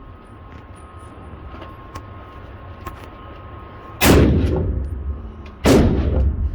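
Two gunshots about a second and a half apart, each ringing out for about a second.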